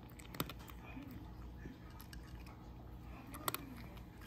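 Orange tabby cat crunching dry kibble, with two sharper crunches, one about half a second in and one about three and a half seconds in, and fainter chewing between them.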